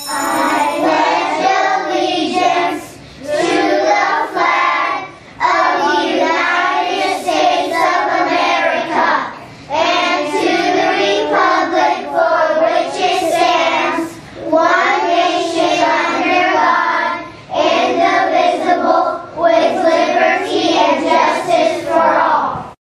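A group of children reciting the Pledge of Allegiance in unison, phrase by phrase, with short pauses between the phrases.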